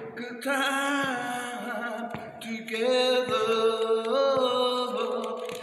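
A voice singing a slow gospel song in long, sliding held notes, with a faint tap about once a second.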